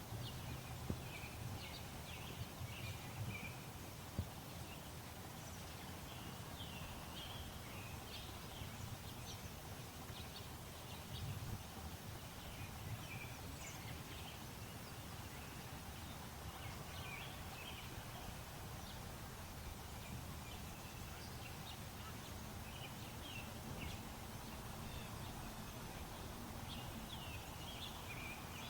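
Outdoor park ambience: small birds chirping on and off over a steady low rumble. A few sharp knocks stand out in the first few seconds.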